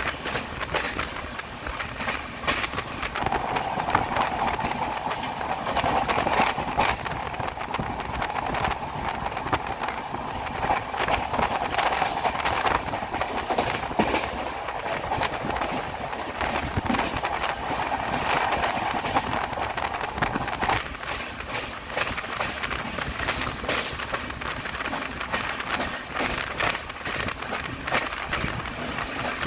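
Express passenger train running at speed: a dense clatter of wheels over rail joints over a steady rushing noise. A mid-pitched part of the rush drops away about two-thirds of the way through.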